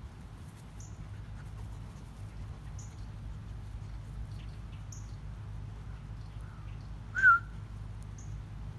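A dog gives a single short, high whine about seven seconds in, over a steady low hum.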